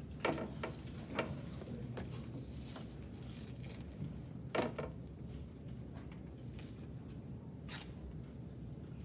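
White athletic tape being pulled off the roll and torn by hand while taping an ankle: a few short, sharp rips, the loudest about four and a half seconds in.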